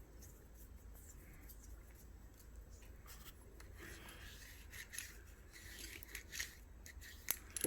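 Faint rubbing and scraping of a cleaning rod pushing a cotton swab through a pistol barrel, with a few small clicks in the second half.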